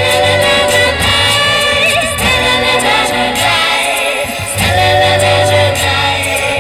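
Live music from a busking duo: voices holding sung notes over a steady bass and rhythmic accompaniment. The music thins out briefly a little past the middle, then comes back in full.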